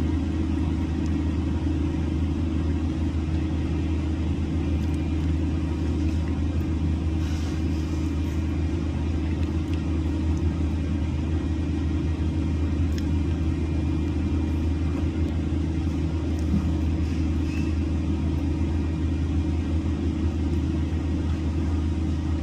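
Concrete mixer truck's diesel engine running steadily, a continuous low rumble.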